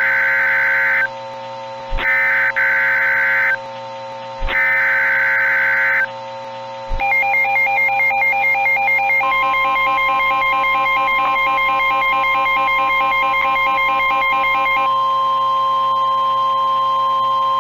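Emergency Alert System tones: three one-second bursts of screeching SAME digital header data, then an electronic alert signal that warbles rapidly between two pitches, joined about nine seconds in by a steady high tone that carries on to the end. A steady low drone runs under it all.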